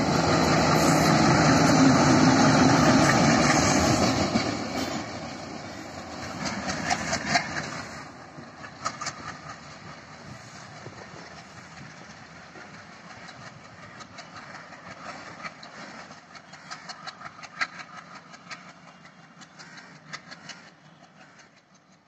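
WDM3A diesel-electric locomotive running light, its ALCO 16-cylinder diesel engine loud as it passes close by for the first few seconds, then fading as it moves away. Scattered clicks of its wheels on the track follow and die away toward the end.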